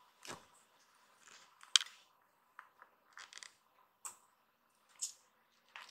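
Kittens' claws and paws scratching and scuffing on the mesh fabric of a pet bed as they play-wrestle: a string of short, scratchy rustles at uneven intervals, the loudest just before two seconds in.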